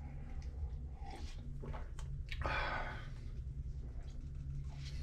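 A man drinking coffee from a paper cup: a few short sips, swallows and breaths, the longest about halfway through, over a steady low hum.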